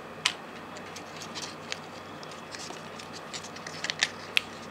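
Hands handling a plastic earphone case and unwrapping Apple EarPods from their card holder: scattered light clicks and scratches, with a sharper click just after the start and several more near the end.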